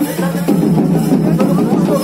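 Music with drums and percussion, loud and continuous.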